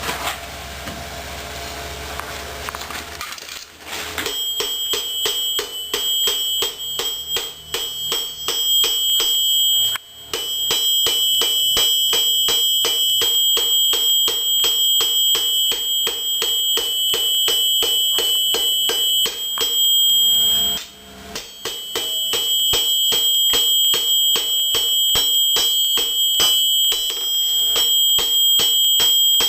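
Rapid, steady hand-hammer blows on hot steel over an anvil, with the anvil ringing at a steady high pitch under the strikes; the blows stop briefly twice. For the first three seconds or so there is only a steady rushing hiss before the hammering starts.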